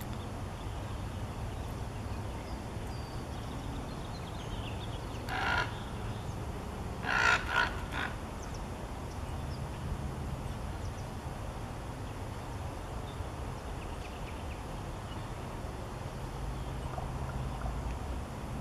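A crow cawing harshly: one caw about five seconds in, then a quick run of three louder caws about two seconds later. These are mobbing calls at a great horned owl perched close by.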